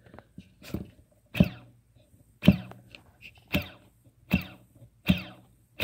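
DYS Samguk WEI 2600kv brushless drone motor with freshly replaced bearings, flicked round by finger again and again, about once a second. Each spin starts sharply and its whine falls in pitch as the motor coasts down. It spins smoothly with no rattle, the sound of good bearings.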